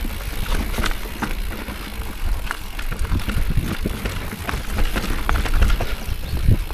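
Mountain bike rolling down a trail: a steady tyre rumble with many scattered rattles and clicks from the bike, and wind buffeting the microphone.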